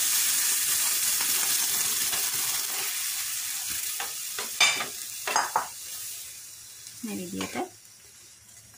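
A wet mashed lentil and turkey berry mixture sizzling in hot oil with fried onions and garlic in a frying pan. The sizzle is loud at first and gradually dies away. About halfway through, a metal spoon scrapes and clinks against the pan a few times as the mixture is stirred.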